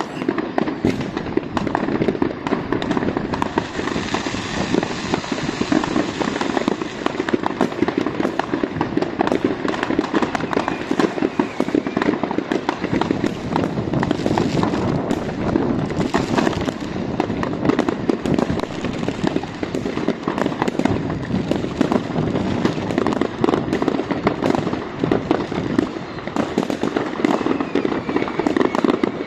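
Many fireworks going off at once: a dense, unbroken barrage of bangs, firecracker strings and crackling shell bursts.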